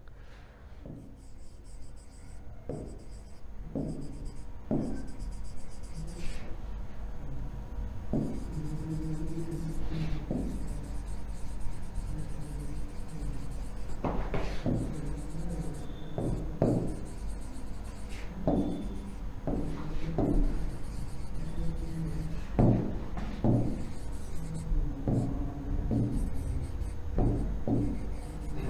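Pen stylus tapping and scratching on the glass of an interactive display as a question is written out by hand: irregular short clicks and scrapes, one stroke after another.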